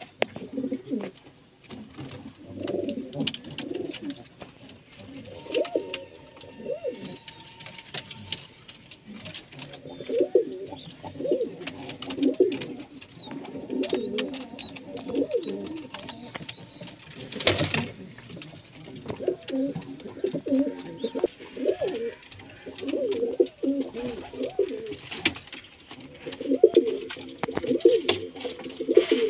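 Desi highflyer pigeons cooing over and over in a small loft, with scattered light clicks and one loud sharp crack about 17 seconds in. A run of high chirps sounds through the middle.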